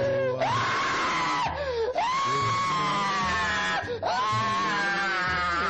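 A boy screaming: three long, high, held screams, each sliding up at its start, with short breaks between them.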